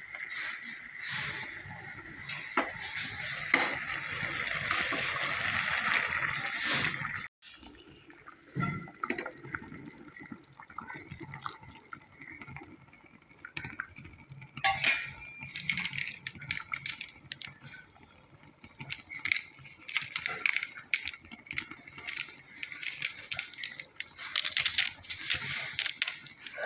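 Water running steadily for about seven seconds, stopping abruptly, followed by scattered clinks and small splashes of kitchen work.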